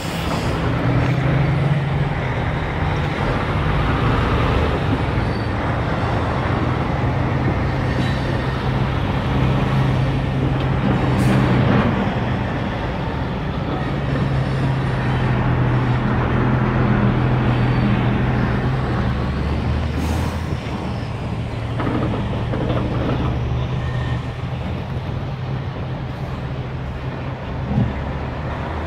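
EMD SD40-2 diesel locomotives of a short freight train running as the train pulls away, a low steady engine drone that shifts slightly in pitch a few times, over a rumble of the moving train.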